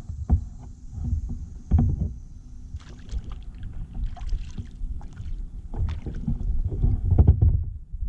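Kayak paddle strokes splashing and swishing through the water, with a few sharp knocks, one about two seconds in.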